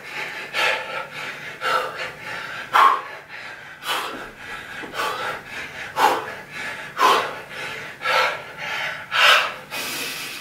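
A man's hard, heavy breathing, with sharp exhales about once a second, from a winded exerciser pushing through a high-intensity workout.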